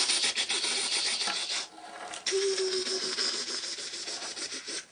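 Rapid submachine-gun fire noise for a toy soldier's gun, a fast rattle in two long bursts with a short break about a second and a half in.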